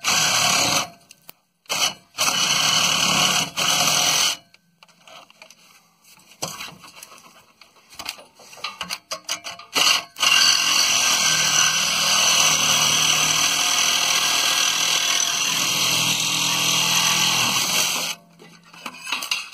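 Cordless reciprocating saw cutting through a rusty exhaust pipe: two short bursts at the start, then a long steady cut of about eight seconds that stops just before the pipe is through.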